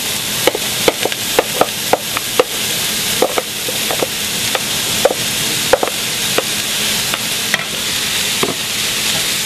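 Diced zucchini sizzling as it lands in a skillet of hot oil and onion, with a steady frying hiss. A wooden spoon knocks and scrapes repeatedly as the pieces are pushed out of the bowl into the pan, most of the knocks in the first six seconds or so.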